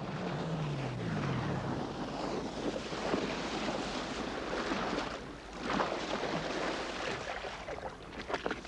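Rushing wind and sea noise that swells and dips, with a low tone gliding downward in the first second or so.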